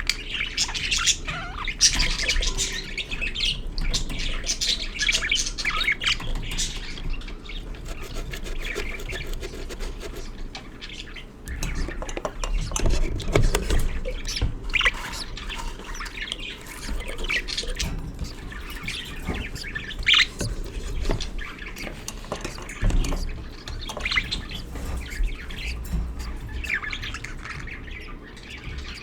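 Budgerigars chattering and squawking in a steady stream of short chirps, with a few clicks and rustles about halfway through.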